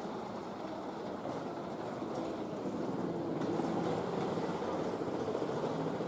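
Steady din of a busy railway station concourse: many people walking, with the hall's echo and rail noise blended together. It grows slightly louder about halfway through.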